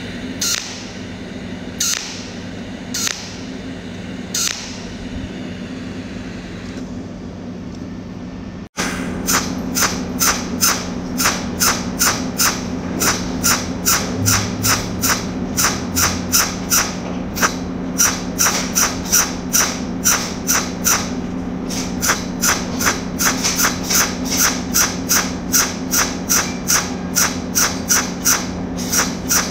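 Pulsed TIG cold welding machine firing arc pulses. First come a few separate sharp zaps as single tack points are laid, then a fast, even train of zaps about three a second as filler rod is fed in point by point. A steady low hum runs underneath.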